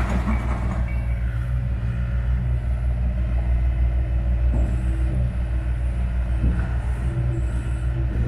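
Diesel engine running with a steady deep hum: a Hitachi six-tonne mini excavator working in demolition rubble.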